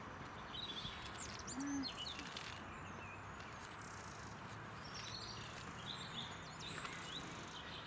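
Small birds chirping in short high phrases, in two spells, over a steady outdoor background hiss, with one brief low note a little under two seconds in.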